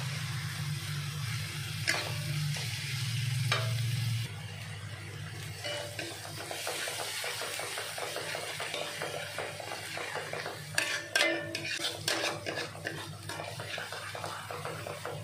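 A metal spatula scrapes and stirs a ground shallot, garlic and chili paste sizzling in oil in a metal wok, frying the spice paste until fragrant. Sharp clanks of spatula on wok come now and then, with a cluster of them about eleven seconds in.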